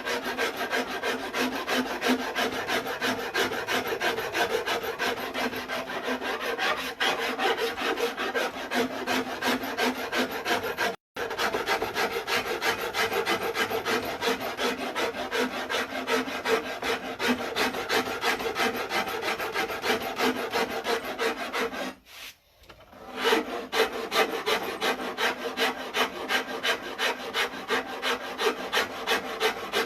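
Wood rasp carving a wooden bass guitar neck by hand, many quick rasping strokes in a steady run. The sound cuts out for a split second about eleven seconds in, and the strokes pause for about a second some twenty-two seconds in.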